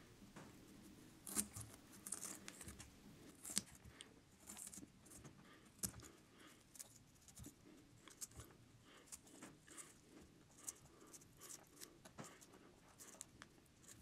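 Faint, scattered scraping and small crunching of small metal surgical instruments gouging a hole into a raw carrot, in short irregular strokes.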